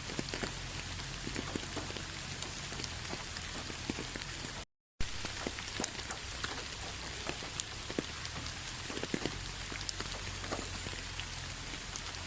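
Steady rain falling, an even hiss with many individual drops tapping and pattering. It cuts out to silence for a split second about five seconds in, then carries on unchanged.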